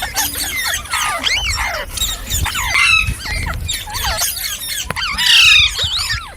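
Several green parrots screeching and squawking, a dense run of short harsh calls that overlap one another, with the loudest burst of calls about five seconds in.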